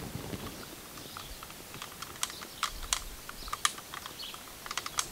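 A run of light, irregular clicks and taps, sparse at first and thicker from about two seconds in.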